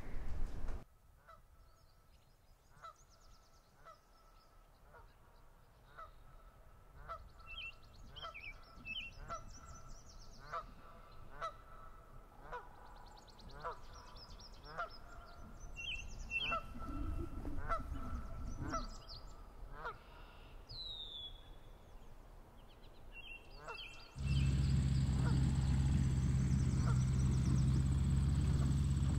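Geese honking repeatedly, roughly one call a second, with small birds chirping now and then. About 24 seconds in, a steady engine hum starts suddenly and is the loudest sound to the end.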